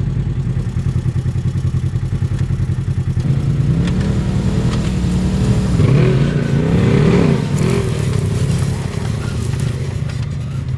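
A vehicle engine running steadily, revving up and down a few times in the middle, loudest about six to seven seconds in.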